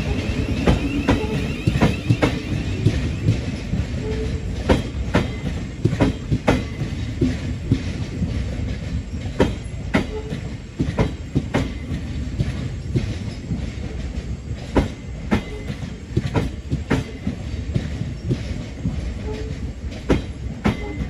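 Thameslink Class 700 electric multiple unit moving past on the track, with a steady low rumble and wheels clicking irregularly over rail joints and pointwork. A faint wavering high whine is heard in the first couple of seconds.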